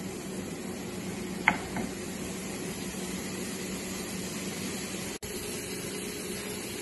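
Shrimp sizzling in hot oil in a nonstick frying pan, a steady hiss, with one sharp tap about a second and a half in.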